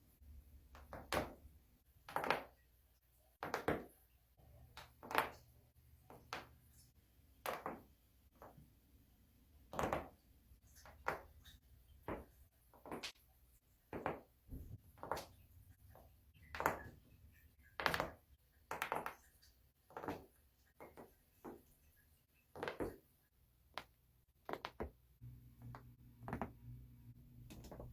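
Spinal joints cracking during chiropractic back adjustments: a string of sharp pops and cracks, roughly one a second at uneven spacing, some much louder than others.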